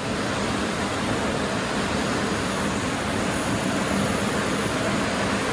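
Heavy rain drumming on a garage roof, a steady loud hiss.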